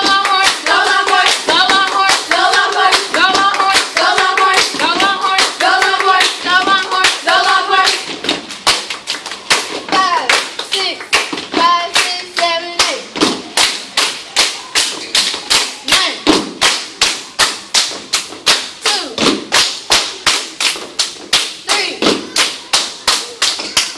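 A group of girls clapping their hands and stepping in a steady, quick rhythm. Over the first third they chant together in time with the claps, with a shorter burst of chanting a little before halfway; after that only the claps and steps keep the beat.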